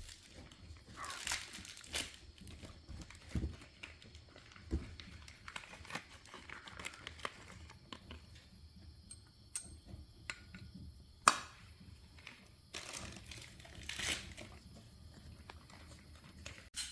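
Scattered light clicks, taps and rustling from hand work on engine parts, with one sharper click about eleven seconds in.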